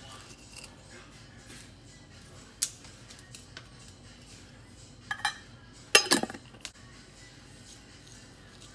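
A few sharp clinks of a metal spoon and kitchenware: a single one about two and a half seconds in, then a quick cluster a little after five seconds, the loudest about six seconds in.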